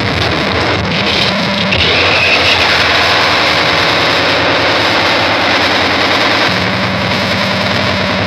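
Harsh noise music: a dense, loud wall of distorted, effects-processed noise. A low steady drone comes up underneath about two-thirds of the way through.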